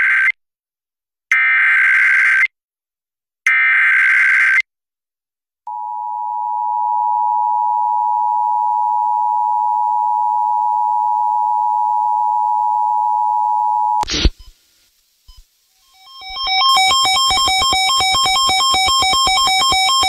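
Emergency Alert System broadcast tones announcing a severe thunderstorm warning. First come three short, buzzy bursts of the SAME digital header, then the two-tone EAS attention signal (853 and 960 Hz) held steadily for about eight seconds, which cuts off with a click. After a short gap, synthesizer music fades in.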